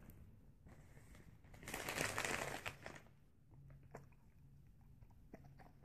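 A puppy crunching a treat: a burst of crunching about two seconds in that lasts about a second, followed by a few faint chewing clicks.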